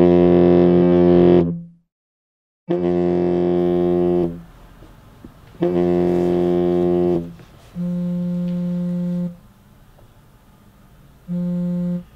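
A mobile phone buzzing on vibrate in five long pulses about a second apart, the last two quieter.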